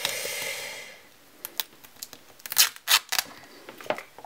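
A sticker seal being peeled off a clear plastic gashapon capsule: a short rasping peel of about a second. It is followed by sharp plastic clicks and crinkles as the capsule and its plastic bag are handled, the loudest in a quick cluster about midway.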